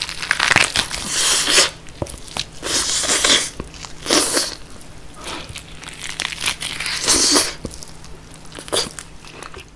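Bites into a roast pork knuckle (schweinshaxe): the skin crunches and the meat tears away in the teeth, in about five loud bursts with quieter crackling between them.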